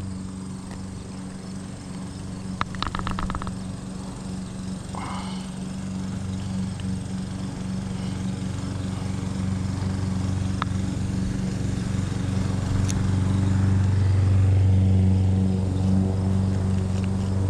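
Lawn mower engine running steadily close by, its hum swelling louder about two-thirds of the way through.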